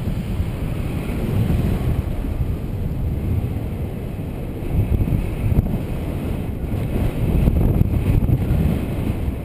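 Wind rushing over the camera microphone of a paraglider in flight: a low, rumbling airflow noise that rises and falls in gusts.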